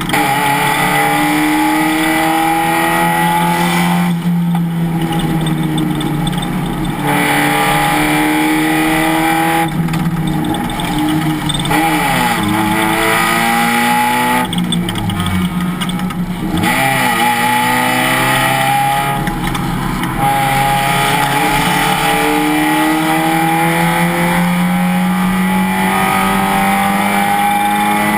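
Race car engine at full throttle, its pitch climbing again and again as it pulls through the gears. About halfway through it drops sharply twice, with quick rev blips, as the car downshifts and slows for corners, then climbs again.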